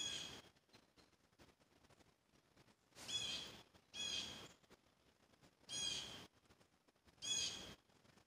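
A bird calling five times, each call about half a second long, at uneven gaps.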